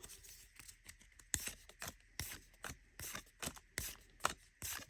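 Pokémon trading cards being flicked over one at a time from a freshly opened booster pack, a short crisp snap about every half second.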